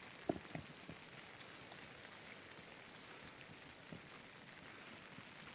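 Faint steady rain, with scattered drops ticking on surfaces; one sharper drop tick comes shortly after the start.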